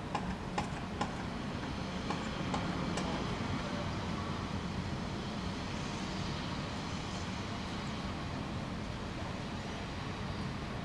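Steady hum of distant city traffic, with a few sharp ticks in the first three seconds.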